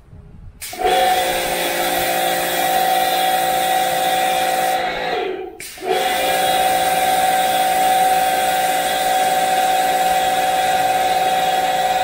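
Travino portable pressure washer running: a steady motor and pump whine over the hiss of the water spray. It stops briefly about five seconds in, its pitch falling as it stops, then starts again.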